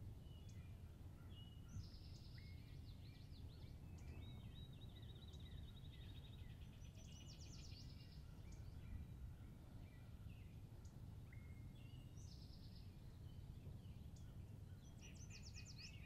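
Faint songbirds singing: several high-pitched trills, chirps and rapid runs of notes, some repeated, over a low, steady background rumble.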